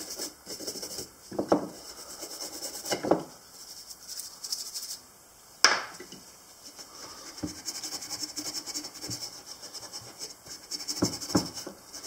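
Quick, rhythmic scrubbing on the small steel blade of an old pocket knife, first with a toothbrush, coming in spurts with short pauses. A few light knocks, and one sharp click a little before halfway, the loudest sound.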